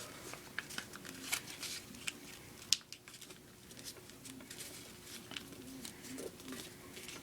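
A sheet of origami paper crinkling and crackling as it is folded, pushed in and creased by hand, with scattered short crackles and one sharper snap near three seconds in.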